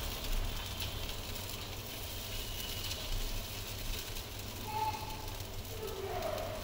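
Moong dal chilla batter sizzling on a hot pan: a steady crackling hiss, with a low steady hum underneath.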